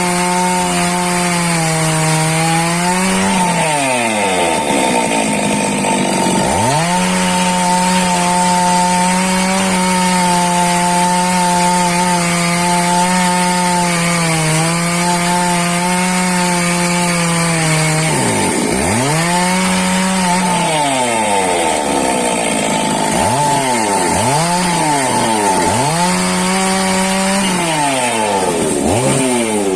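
Two-stroke chainsaw running at high revs while cutting wood. The engine note falls away and climbs back several times: once early, once midway, and three times in quick succession near the end.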